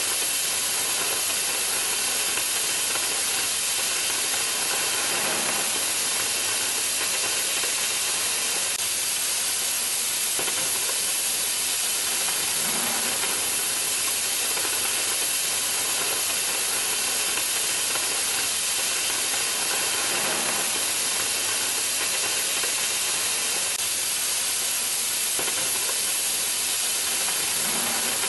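Oxy-fuel cutting torch on an HK-12MAX-3 portable flame-cutting tractor, hissing steadily as its jet cuts through steel plate.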